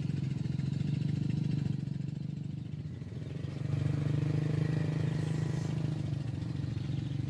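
An engine running with a steady low drone, dipping about three seconds in and growing louder from about four to six seconds in.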